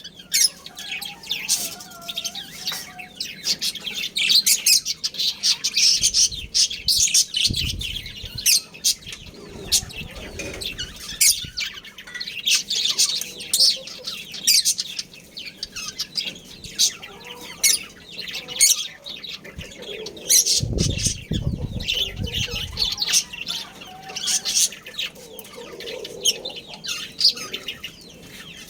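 Budgerigars chirping and chattering continuously, many quick high calls overlapping. A low rumble comes in twice, about a quarter of the way in and again about three quarters through.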